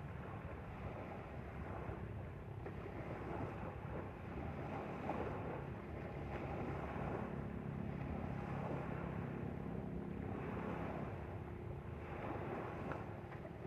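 Small motorboat under way: a steady rush of wind on the microphone and water along the hull, with a faint engine hum underneath through the middle.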